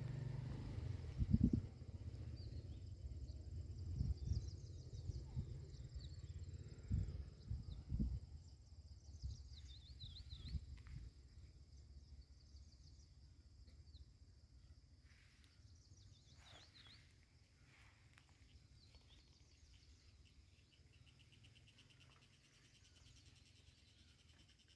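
Rural outdoor ambience: small birds give short chirping calls now and then, and an insect trills with fast, even pulses near the end. Low thuds and rumble come through in the first eight seconds, then fade.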